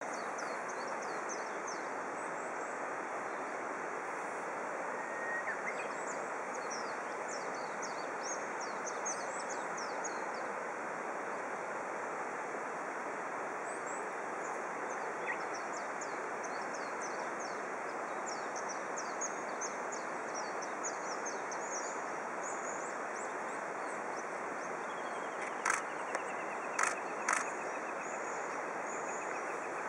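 Steady outdoor hiss with small birds chirping throughout in short, high, falling notes. Three sharp clicks come close together near the end.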